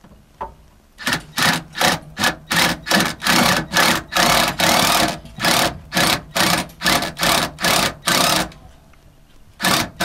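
Ratchet wrench clicking in quick back-and-forth strokes, about two or three a second, tightening a bolt that holds a bus seat down through the floor. The strokes stop about 8.5 seconds in and start again near the end.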